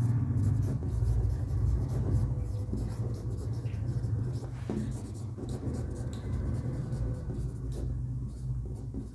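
Writing: faint, irregular scratching strokes of a pen or marker as words are written out, over a steady low hum.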